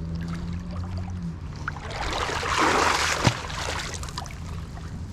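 An angler pushing through a creek and a tangle of overhanging limbs: water swishing and brush rustling, swelling in the middle, with one sharp knock about three seconds in.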